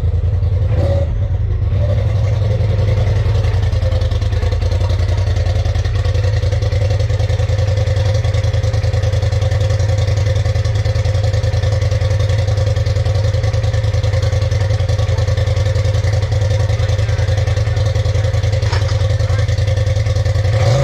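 Polaris RZR Turbo S side-by-side engine running steadily at an unchanging speed, with a brief clunk about a second in.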